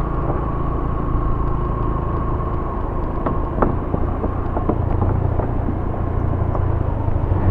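Yamaha YBR 125G motorcycle's single-cylinder four-stroke engine running steadily on the move, with a couple of light knocks a little past three seconds in.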